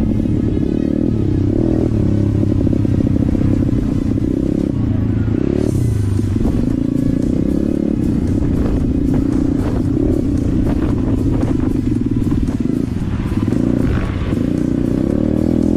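Dirt bike engine running loudly, its pitch changing several times as the throttle is worked.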